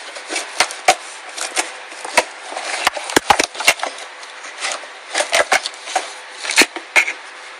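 Packaging being handled as a football helmet visor is unboxed: irregular rustling with many sharp clicks and crackles, bunched together about three seconds in.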